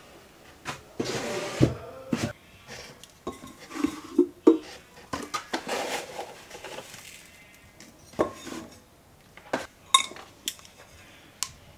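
Powdered laundry detergent poured from a cardboard box into a glass canister, with two spells of pouring hiss, a plastic scoop knocking, and a series of sharp glass clinks in the second half.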